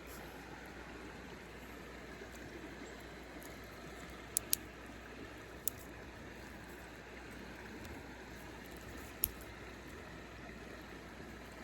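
River water flowing steadily, with a few short sharp clicks scattered through it: a quick pair about four and a half seconds in, one near six seconds and one near nine.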